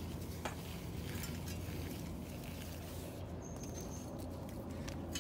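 Faint scratchy rustling and small clicks of titanium exhaust heat wrap being stretched and wound around a motorcycle header pipe, over a steady low hum.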